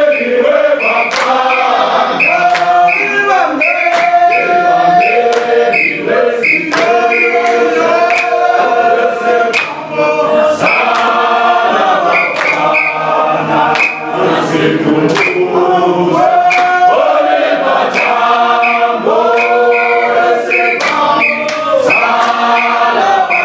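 A mixed group of men and women singing an unaccompanied song together, with sharp hand claps in time with the singing.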